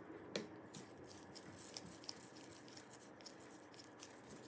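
Faint clicks and taps of hands and a small screwdriver refitting the copper SSD shield in an open laptop and driving its screw, with one sharper click about a third of a second in.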